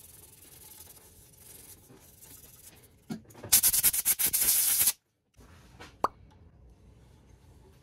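Sandpaper hissing faintly against a pen blank spinning on a wood lathe, then, about three seconds in, a compressed-air blow gun blasts for about two seconds to clear the sanding dust off the blank and stops abruptly. A brief squeak follows a second later.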